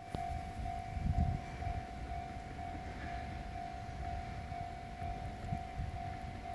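Japanese railway level-crossing warning bell sounding: an electronic tone repeating at an even pace of about two a second.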